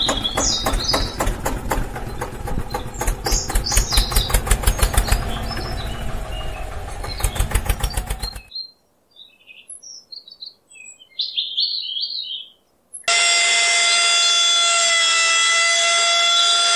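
Small electric motor of a homemade toy tractor running with a fast rattle as it drives, while birds chirp. It stops about eight seconds in, leaving only bird chirps. About thirteen seconds in, a second small motor starts with a steady whine as the toy trailer begins to tip its load.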